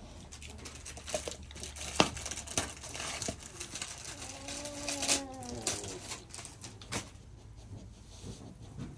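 Dry crackling and crunching in straw, many sharp clicks close together, with a drawn-out whine that rises and falls about four seconds in. The crackling thins out over the last couple of seconds.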